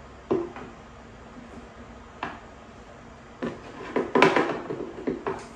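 Handling noise from a small plastic wireless-microphone set and its charging case: sharp clicks and knocks, a few spaced out, then a quick run of them about four seconds in.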